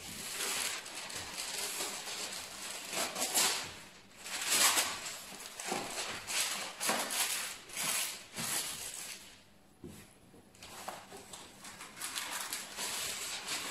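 Hands kneading and pressing bread dough on a floured wooden board: a string of irregular soft rubbing and patting sounds.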